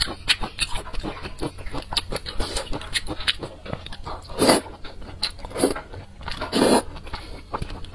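Close-miked eating sounds: wet chewing and lip smacks, with three louder slurps of wide noodles about four and a half, five and a half and six and a half seconds in.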